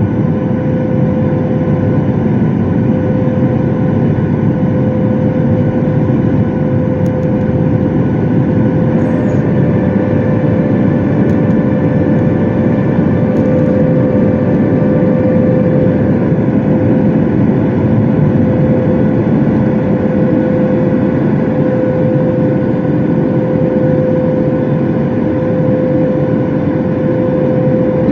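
Jet airliner engines heard from inside the passenger cabin during the take-off climb: a loud, steady rush with a constant whine held on one pitch.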